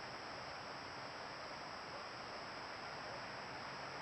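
Steady, even hiss from a trail camera's microphone and electronics, with a thin high whine over it.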